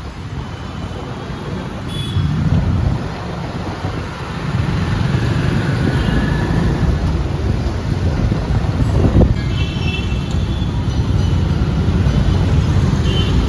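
Busy city street traffic of motor scooters and auto-rickshaws: a steady rumble of engines and tyres, with a few short horn beeps around the middle and near the end.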